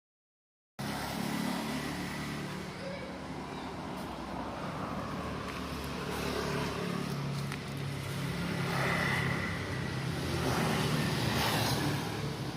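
Grass chopper machine running steadily under its motor, cutting in abruptly about a second in and swelling louder twice near the end.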